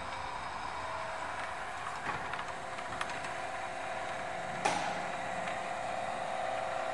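A steady mechanical hum at one pitch with light hiss, broken by a few light clicks and one sharper click about two-thirds of the way through.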